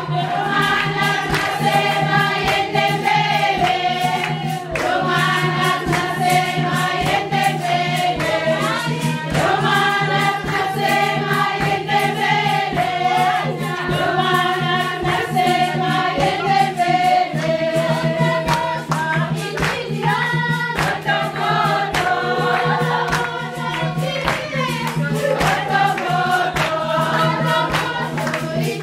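A group of women singing a lively welcome song together, accompanied by steady rhythmic hand clapping.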